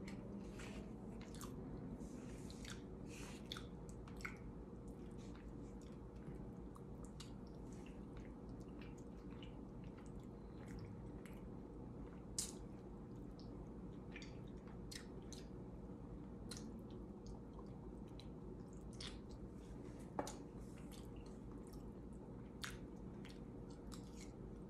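A person eating: faint chewing and mouth sounds, with scattered small clicks and taps of a plastic fork against a plate over a steady low hum.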